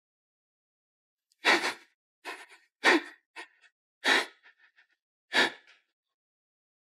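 A person's sharp gasps and breathy cries, five in all, roughly a second apart, starting about a second and a half in.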